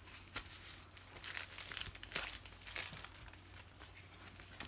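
Clear plastic packaging crinkling and crackling in irregular bursts as a rolled diamond-painting canvas in its plastic sleeve is handled and unrolled.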